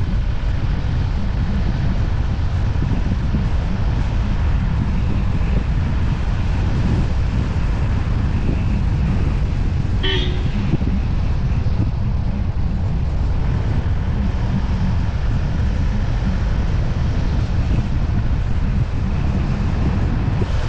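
Wind buffeting a camera mounted on the outside of a moving car: a steady low rumble over car and tyre noise on a wet road. A brief high-pitched sound comes about halfway through.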